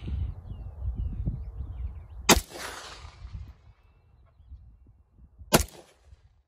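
An AK-47 rifle firing two single shots of 7.62x39, about three seconds apart, each a sharp crack followed by a short echo.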